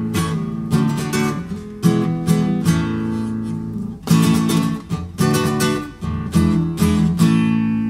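Instrumental break of a song: an acoustic guitar strumming chords.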